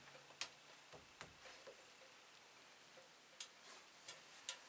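Near silence broken by a handful of faint, sharp ticks and taps, spaced irregularly: hand work on the wooden roof framing overhead.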